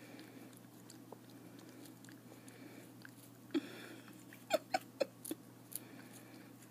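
A cat chewing and biting on a caramel apple slice: faint chewing, a short scraping noise about halfway, then five sharp clicks of biting over about a second and a half.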